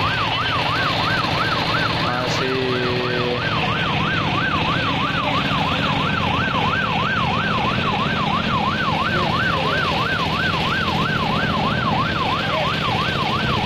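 Police car siren in yelp mode, its pitch swinging up and down quickly, about three times a second, without a break.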